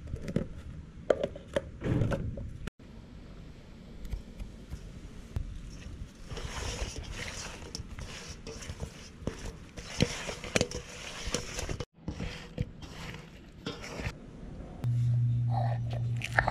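Hands mixing raw hilsa fish pieces with chili and turmeric powder in a steel bowl, with irregular clicks and knocks. Near the end a steady low hum starts.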